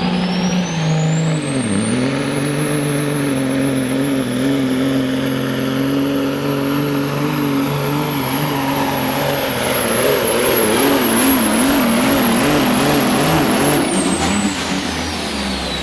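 Modified diesel semi truck engine working hard under load on a sled pull, with a high turbo whistle that rises over the first two seconds, holds steady, and winds down near the end. The engine note dips briefly about two seconds in and wavers in the later part of the run.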